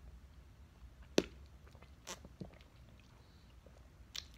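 Mouth sounds of biting and sucking a green apple fruit jelly out of its thin plastic casing: a sharp wet click about a second in, two softer ones a second later, and another near the end.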